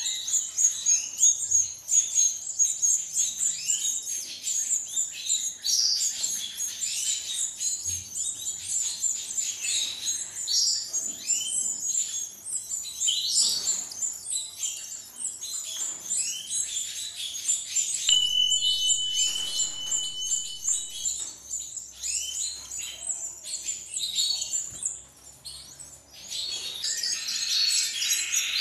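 A brood of canary chicks about 20 days old, begging with rapid high-pitched chirping as the female feeds them. A single steady whistle-like note lasts about three seconds past the middle, and a brief rushing noise comes in near the end.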